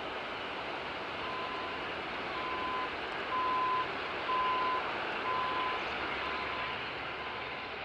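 A vehicle's reversing alarm beeping about once a second, one steady pitch, loudest mid-way and fading toward the end, over a steady rush of jet engine noise across the airfield.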